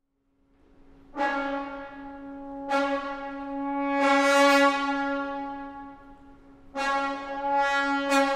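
Instrumental music: a held low note, then horn-like chords that come in sharply about a second in and again several more times, each swelling and fading.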